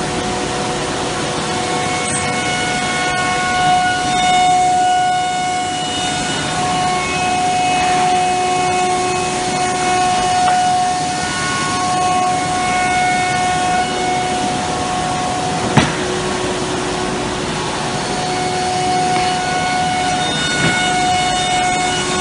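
Cosmec Conquest 715 flat-table CNC router running, its spindle and axis drives giving several whining tones that come and go as the head moves, over a rough hiss of machining. There is one sharp knock about two-thirds of the way through.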